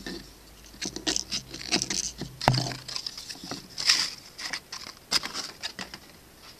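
Irregular light knocks, rubs and scrapes of a CNC-machined hardwood wheel being handled and turned over in the hand, thinning out in the last couple of seconds.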